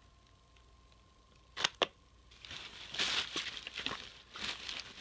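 Plastic bags and packaging crinkling in rapid rustling bursts as items are rummaged through, after two sharp clicks about a second and a half in.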